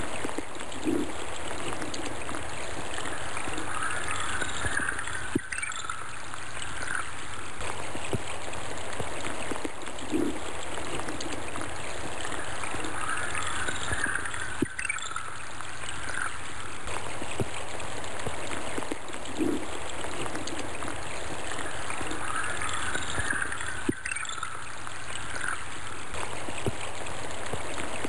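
Stream of water running and babbling with a steady rush. The same few seconds of water sound repeat about every nine seconds, as a loop.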